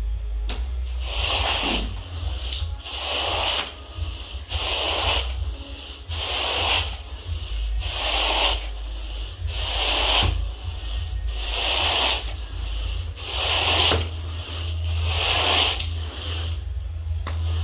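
Carpet grooming rake pulled through the pile of freshly cleaned carpet in steady strokes, about one every two seconds, each a brushing scrape.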